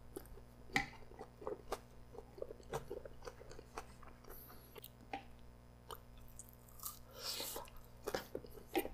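Close-miked chewing of grilled chicken skewer meat (Korean dakkochi): soft, wet mouth clicks and smacks at irregular intervals, with a longer soft rush of noise about seven seconds in.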